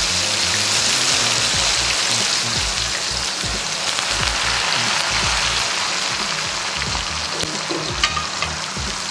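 Wet boiled peanuts deep-frying in a wok of hot oil: a dense, steady sizzle and bubbling that slowly eases. The oil is foaming hard as the water from the freshly boiled peanuts boils off. There is one sharp tick about eight seconds in.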